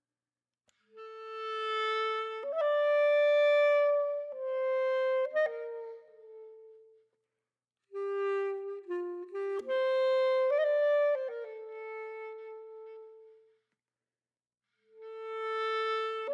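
Background music: a slow solo wind-instrument melody of held notes, in three phrases separated by brief silences.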